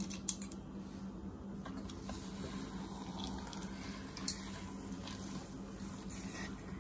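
Spatula stirring thick, pasty rava kesari in a nonstick pot: soft squishing with a few light clicks and scrapes, the first as roasted cashews and raisins drop in at the start. A steady low hum and hiss lie underneath.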